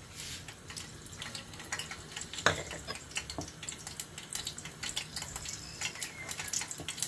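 Metal spoon stirring dry cornstarch in a ceramic bowl, with many small clicks and scrapes of the spoon against the bowl and one louder knock about two and a half seconds in.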